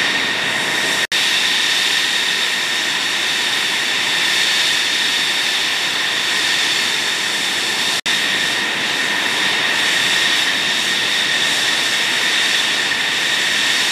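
F-16 Fighting Falcon's General Electric F110 turbofan running at idle on the ramp: a steady rushing noise with a high whine. The sound drops out for an instant twice, about a second in and about eight seconds in.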